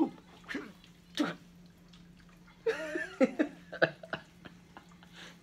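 A few sharp finger snaps in the first second or so, then a baby's short high-pitched squeals and coos, over a steady low hum.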